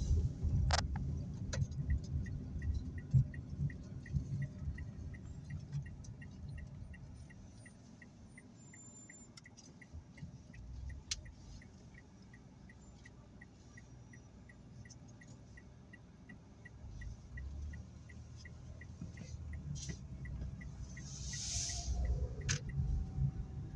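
A car's turn-signal indicator clicking steadily, about two clicks a second, over the low rumble of the engine and road noise inside the cabin. The clicking stops near the end as the turn is completed, about when a brief hiss passes.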